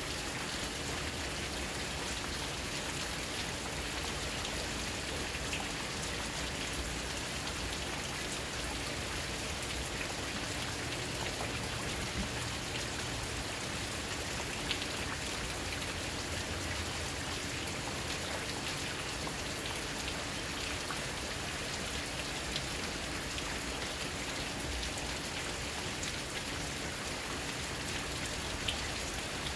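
Steady rain falling, with a few single drops ticking now and then.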